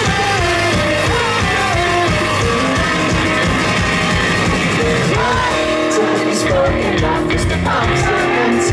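Live rock band playing: electric guitars and drum kit with a man singing.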